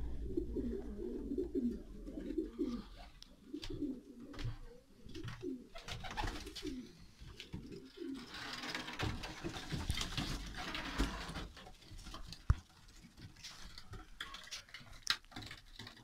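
Young racing pigeons cooing in the loft: a run of repeated low, throaty coos in the first half, then a stretch of rustling and a few sharp clicks.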